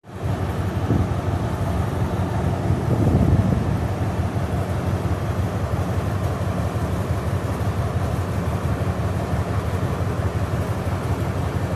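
Alsthom diesel-electric locomotive 4128 with its engine working under load as it pulls a passenger train away from the platform: a steady low rumble that swells briefly about three seconds in.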